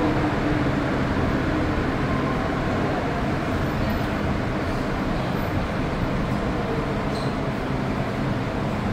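Cabin noise of an MTR Metro-Cammell DC electric multiple unit running underground: a steady rumble of wheels on rail.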